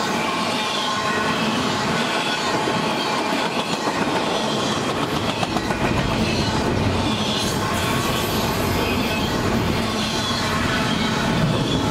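Double-stack intermodal container train rolling past at speed: a steady rumble and clatter of steel wheels on the rails as the loaded well cars go by.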